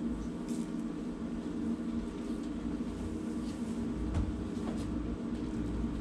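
An engine running steadily at idle, a low even hum with a few faint ticks over it.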